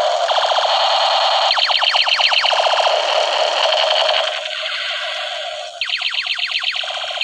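Battery-powered toy light gun's electronic sound effects from its small speaker: a continuous buzzing tone broken by two runs of rapid falling laser zaps, one about a second and a half in and another near the end.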